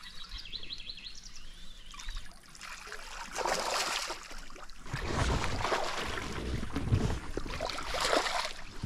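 A hooked zander thrashing and splashing at the water's surface beside the boat as it is played in, in irregular splashes that start about three seconds in.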